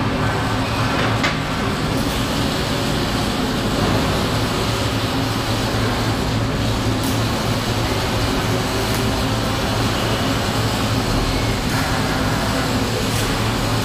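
Steady shop-floor noise in a robotic welding area: a constant low hum under a dense, even wash of machinery noise, with a few faint ticks.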